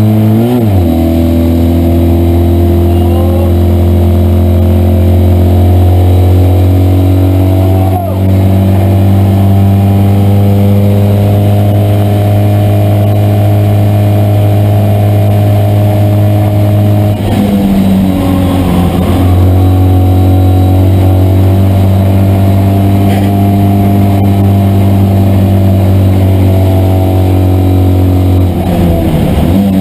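Citroën 2CV race car's air-cooled flat-twin engine running hard at high, steady revs, heard from inside the cabin. The revs dip briefly about eight seconds in and again near the end, and fall for a couple of seconds just past halfway before picking up again.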